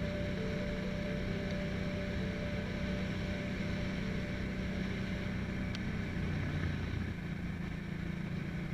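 Motorcycle engine running at steady road speed, with wind rushing over a helmet-mounted microphone. The engine note drops about six seconds in as the bike eases off.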